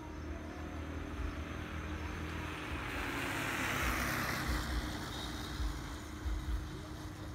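A small motorcycle passing by on the road: its engine and tyre noise swell to a peak about four seconds in, then fade away. A low rumble and a steady hum continue underneath.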